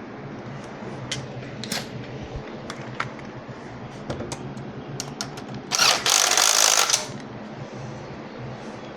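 Scattered clicks and taps of hand tools and metal parts being handled during work on a motorcycle's coolant hose, with one loud rasping burst about a second long a little past the middle, over a steady low hum.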